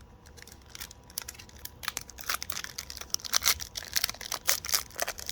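Foil wrapper of a Pokémon TCG booster pack being torn open and crinkled by hand: a dense run of irregular crackles and tears, busier in the second half.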